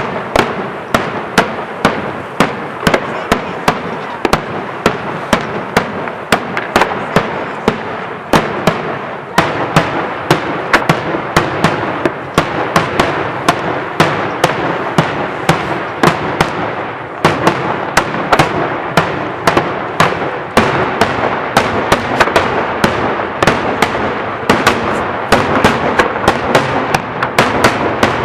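Daytime aerial fireworks: a sustained barrage of shells bursting overhead, sharp bangs two or three a second over a steady crackle. The crackle grows louder about nine seconds in and again a little past halfway.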